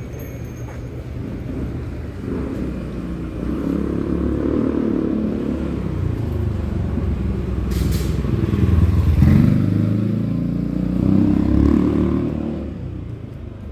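A motor vehicle engine running close by, swelling and easing twice, loudest about nine seconds in.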